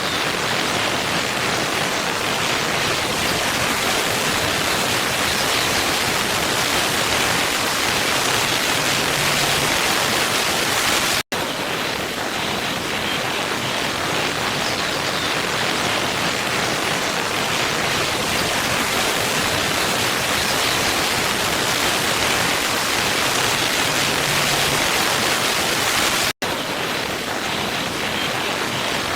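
Steady rushing of a waterfall's falling water. It cuts out for a split second twice, about fifteen seconds apart, where the looped track restarts.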